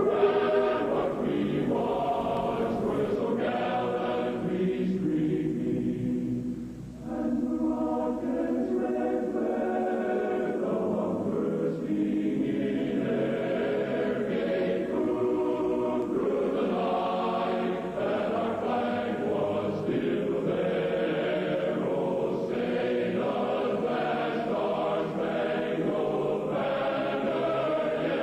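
Choral music: a choir holding long, sustained chords, dipping briefly in loudness about seven seconds in.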